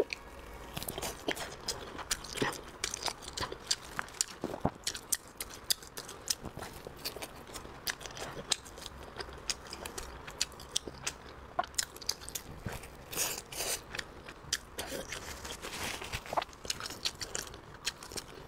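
A person biting into and chewing a large pork meatball, with many irregular sharp crunching clicks.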